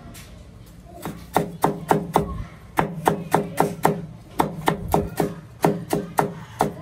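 Chinese cleaver slicing ginger into thin strips on a wooden cutting board: the blade knocks on the board about four times a second, in short runs with brief pauses, starting about a second in.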